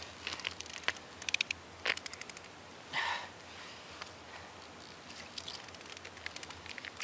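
Fishing line being pulled up hand over hand through a hole in the ice: scattered light clicks and rustles, with a quick run of clicks just over a second in. A short breath is heard about three seconds in.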